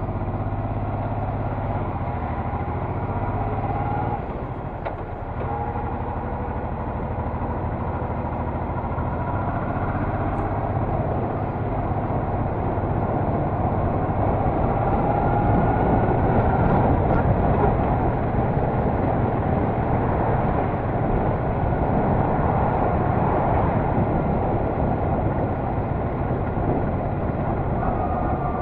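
Honda Deauville NT650V's V-twin engine running on the move, with wind rushing over the microphone. The engine note is steady and low for the first few seconds, dips briefly, then the sound grows louder and the wind rush builds as the bike picks up speed.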